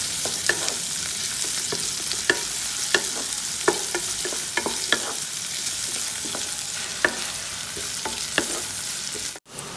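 Shallots, green chillies and curry leaves sizzling in hot coconut oil: a steady hiss, with the spatula scraping and clicking against the pan about once or twice a second as they are stirred and sautéed toward golden brown. The sound cuts out for an instant near the end.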